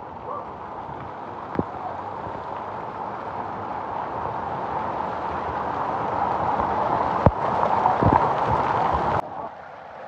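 Waterfall water rushing, growing steadily louder, then cutting off abruptly about nine seconds in. A few sharp knocks sound over it, mostly near the end.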